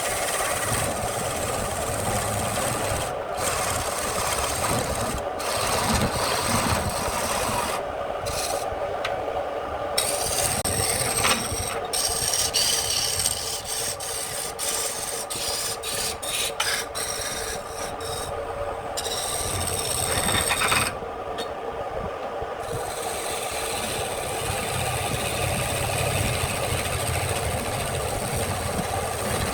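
Wood lathe running, with a turning tool scraping the spinning wood in a steady rasp over the hum of the motor. The rasp drops away briefly a few times, about a third of the way in and again past the middle, as the tool leaves the wood.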